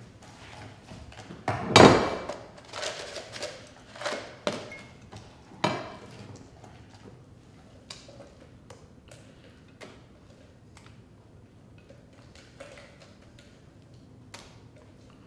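A spatula knocking and scraping against a glass mixing bowl as a mashed-potato mixture is stirred, then tipped and scraped out into a glass baking dish. A run of sharp knocks comes in the first six seconds, the loudest about two seconds in, followed by fainter scattered taps.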